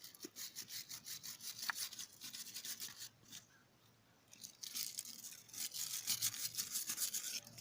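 Wire brush scrubbed quickly back and forth over a rock to clear dirt build-up, about five strokes a second. The scrubbing stops for about a second and a half midway, then resumes.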